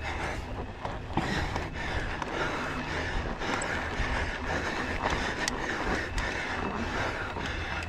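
Mountain bike climbing a steep trail on loose, dry dirt: steady tyre and wind noise on the action-camera microphone, with scattered clicks and rattles.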